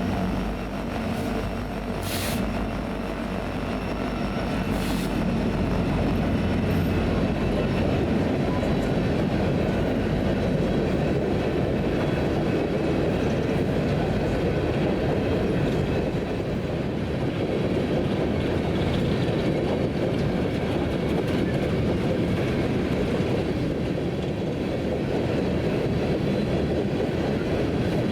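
Long empty coal train of hopper cars rolling past slowly, a steady rumble of steel wheels on rail, with a few sharp clicks in the first five seconds.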